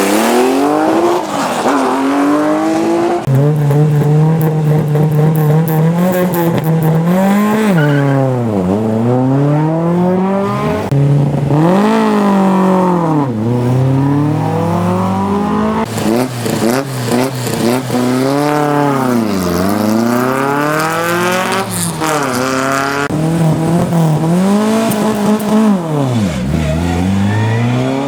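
Rally car engines revving hard at launch: revs held steady on the line, then rising and dropping back in quick succession as the cars accelerate away through the gears. Several launches follow one another, each cut in abruptly.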